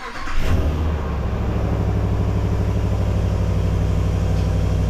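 Dodge Ram 1500 pickup's engine starting: it catches about half a second in with a brief rev, then settles into a steady idle.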